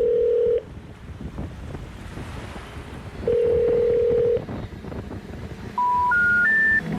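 Telephone call tones: two long, steady low beeps about three seconds apart, like a ringback tone. Near the end come three short beeps rising in pitch, the special information tone that signals a call that cannot be completed. A steady rushing background noise runs underneath.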